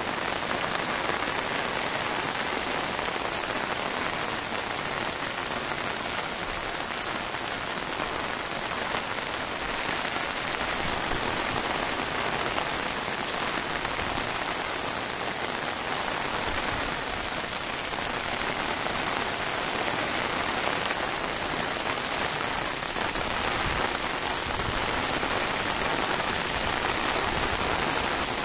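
Heavy rain falling steadily on rooftops and concrete, a dense, even hiss.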